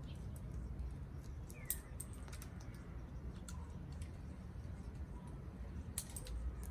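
Amazon parrots cracking and shelling pistachios with their beaks: scattered sharp clicks and cracks, with the loudest ones about a second and a half in and near the end, over a low steady background rumble.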